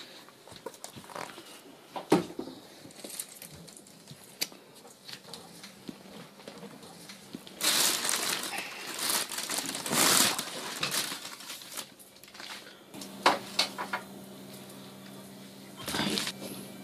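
Scattered clicks and knocks of things being handled, with a few seconds of loud rustling and crinkling from about eight to eleven seconds in and a shorter burst near the end. A faint steady hum sets in after about thirteen seconds.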